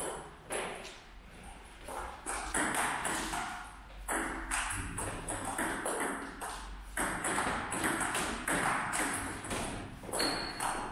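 Table tennis rally: the celluloid ball clicking off the paddles and bouncing on the table, a quick run of sharp clicks about two or three a second, with a short lull about a second in.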